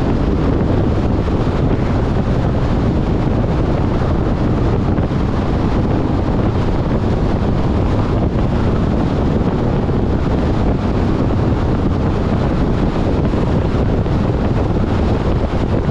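Steady wind and road noise from a car driving, a dense even rush heaviest in the low end.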